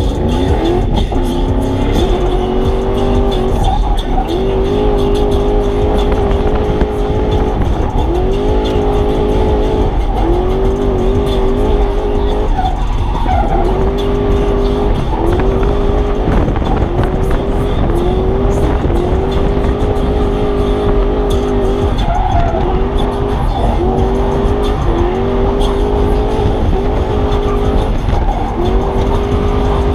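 Toyota 1UZ V8 in a Nissan S13 drifting, heard from inside the cabin: the engine revs up and holds high, then dips, over and over about every one and a half to two seconds, with tyres squealing and skidding.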